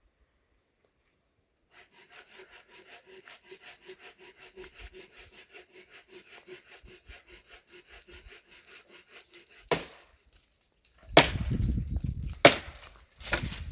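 Fast, even rasping strokes of a saw cutting through wood, then four loud, sharp blows on wood, the later ones with a heavy low thud, as firewood is chopped.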